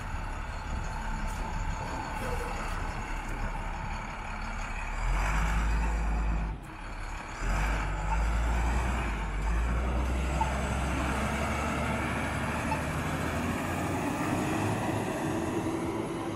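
Street traffic dominated by the low rumble of a heavy flatbed truck's engine running close by, growing stronger about five seconds in.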